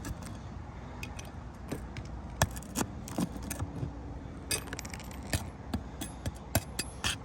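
A metal tool working roofing nails out of a roof shingle: irregular metallic clicks, taps and scrapes, bunching up about four and a half seconds in.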